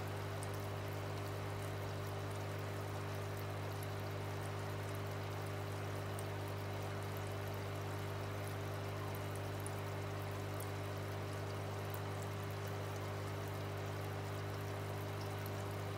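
Aquarium aerator running: a steady low electric hum under constant bubbling, trickling water in the tank.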